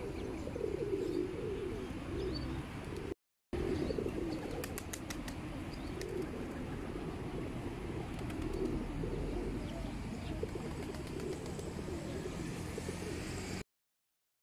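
Feral pigeons cooing, a low wavering burble, with a short run of sharp clicks about four to five seconds in. The sound drops out briefly about three seconds in and cuts off suddenly near the end.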